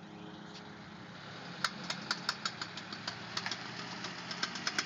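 A steady low mechanical hum, with sharp clicks breaking in about a second and a half in, sparse at first and then quickening into a fast clatter near the end.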